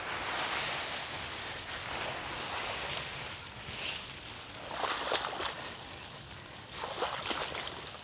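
Tall grass rustling and swishing as cut grass is gathered up by hand and carried through the field, with footsteps pushing through the stalks, loudest about five and seven seconds in.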